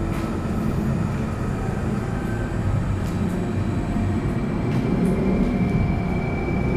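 Steady low rumbling noise with no clear events, a faint thin high tone coming in about two-thirds of the way through.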